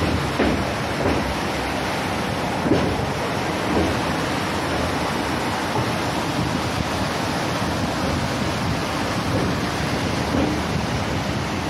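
Rough sea surging and breaking in whitecaps around the bridge piers, a steady rush of water with wind buffeting the microphone, and a few brief louder bumps in the first few seconds.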